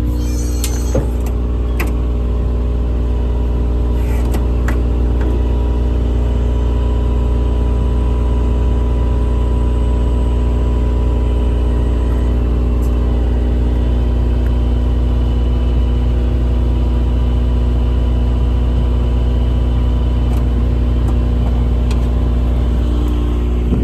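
The service truck's engine running steadily to drive the hydraulic outriggers and crane, a constant low hum with a faint steady whine above it. A few light clicks sound in the first seconds.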